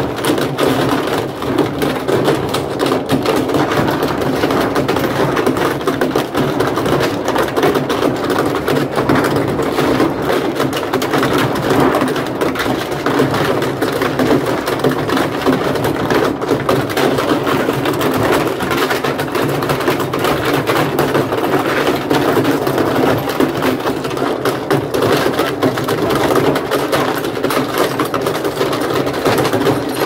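Wrecked top-load washing machine running with broken fragments tumbling in its tub: a steady motor drone under a continuous, dense clatter of pieces knocking against the drum.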